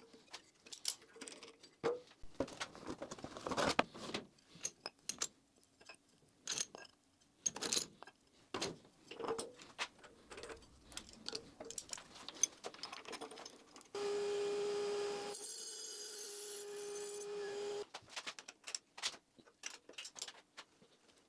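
Metal clinks and clanks of a spanner, wheel flanges and nut being handled while the grinding wheel on a Clarkson Mk1 tool and cutter grinder is changed. About two-thirds of the way through, a steady whine runs for about four seconds and then stops.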